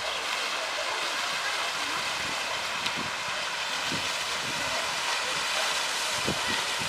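Steady rush of a stream's flowing water, with a few soft low rumbles toward the end.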